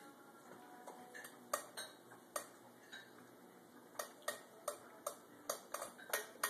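A dog eating turkey from a bowl: sharp clicks and clinks, a few at first and then about two a second in the second half.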